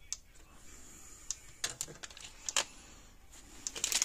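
A few light clicks and taps at uneven intervals, with a faint rustle building near the end.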